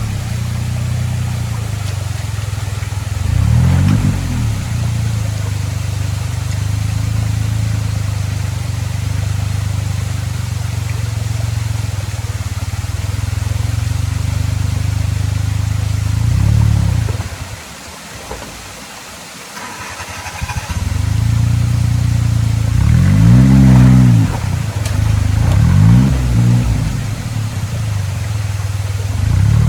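Suzuki Jimny JA11's small turbocharged three-cylinder engine running at low revs, with repeated blips of the throttle that rise and fall in pitch as it works over rocks. It drops much quieter for a few seconds a little past halfway, then picks up again with several more revs.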